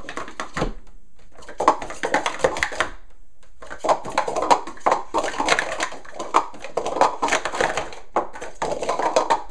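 Plastic sport-stacking cups clattering in rapid runs of clicks as they are upstacked and downstacked at speed through a stacking cycle. There are short breaks about three seconds in and again about eight seconds in.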